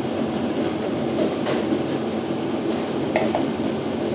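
A few scattered popcorn kernels popping, muffled, inside a covered stainless-steel pot on a gas hob, over a steady rushing noise.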